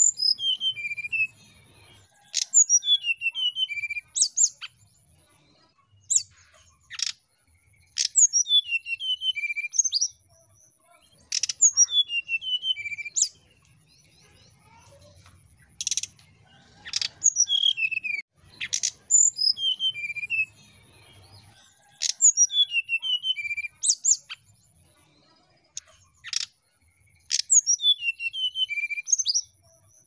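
Brown-chested jungle flycatcher singing: short phrases of quick, descending chirpy notes, repeated every two to three seconds, with sharp clicking notes between phrases.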